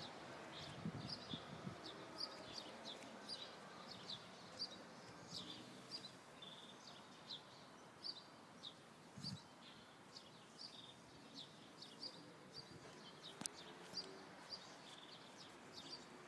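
A small bird chirping over and over, faint, with short high chirps about one or two a second, along with a couple of soft low thumps.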